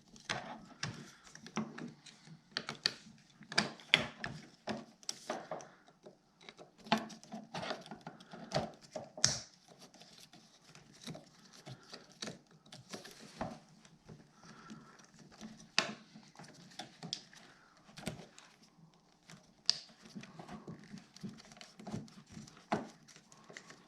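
Irregular light clicks and taps of a Phillips screwdriver and hands working small screws out of the back of a snowmobile's plastic throttle block.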